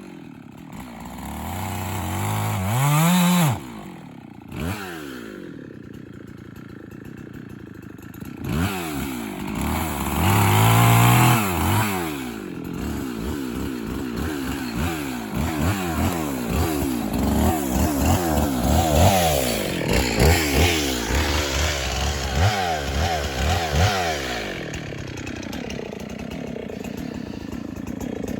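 Chainsaw engine revved again and again while cutting wood, its pitch rising and falling with each rev, then running at a steadier, lower speed near the end.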